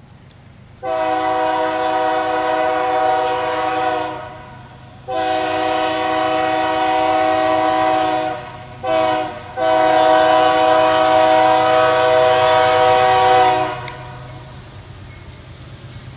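Multi-chime diesel locomotive air horn on BNSF 4920 sounding the grade-crossing signal: two long blasts, a short one and a final long one, a chord of several notes, over the steady low rumble of the passing train.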